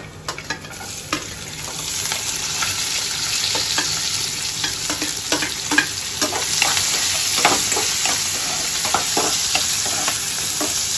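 Chopped onion frying in hot oil in a non-stick pan: a steady sizzle that swells over the first couple of seconds as the onion goes in. A spatula stirs and scrapes through it, with scattered short clicks and knocks against the pan.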